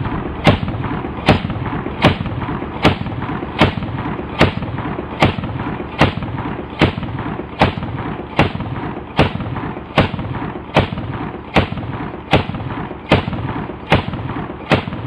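AA-12 fully automatic 12-gauge shotgun firing about nineteen shots, evenly spaced roughly every 0.8 seconds, with a constant din between the shots.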